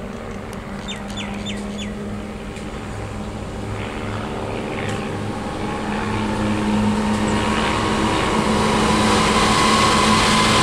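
Diesel-electric locomotives of an Aurizon coal train approaching and passing beneath, their engines' steady drone growing louder throughout, with a whine coming up near the end. About a second in, a bird gives four short falling whistles.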